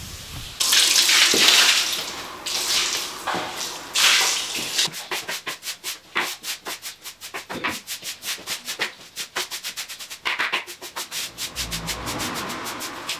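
Scraping and scrubbing of a long-handled tool worked over a rough concrete floor, with a run of quick, even strokes in the middle.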